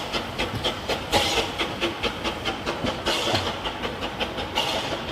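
Small Henschel steam locomotive hauling a park railway train: wheels click steadily over the track, and steam hisses loudly three times.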